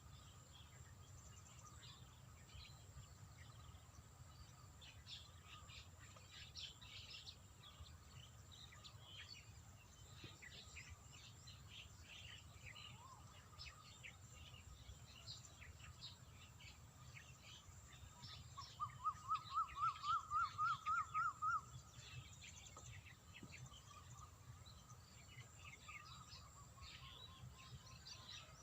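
Faint outdoor ambience of scattered bird and insect chirps over a low hum. A little past the middle comes a quick run of about a dozen rising whistled notes, the loudest sound.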